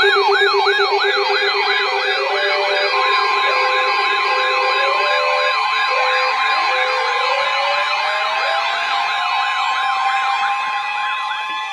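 Several electronic sirens sounding at once: a fast repeating yelp, a quicker high warble and a two-note hi-lo, over a buzzing tone that stops about five seconds in. A steady high tone joins about three seconds in, and a slow rising wail climbs from about six seconds in.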